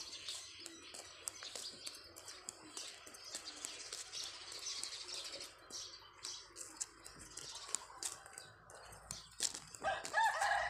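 Scattered clicks and rustling, then near the end a rooster starts crowing loudly.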